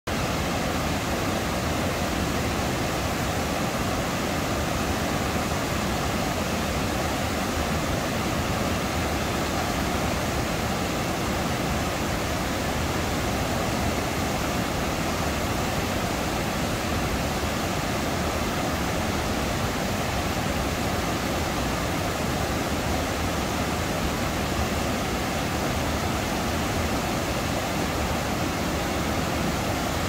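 Waterfall running: a steady, unbroken rush of falling water.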